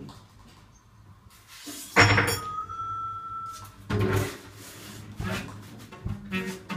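Free-improvised experimental music on objects, electronics and prepared instruments. It is quiet at first, then a sudden loud, noisy burst comes about two seconds in, followed by a brief high held tone and a run of knocks and thuds.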